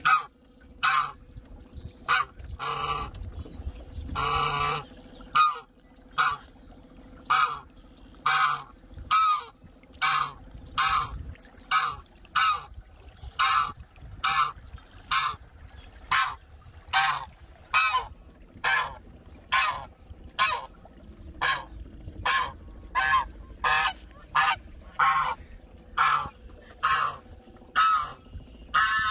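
A knob-billed domestic goose honking over and over in short, loud calls, about three every two seconds, as it swims after a boat.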